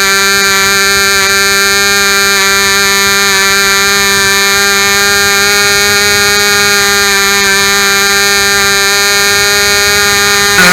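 Royal Spitfire .065 model glow engine running at high revs, a loud, steady high-pitched buzz that holds one pitch throughout.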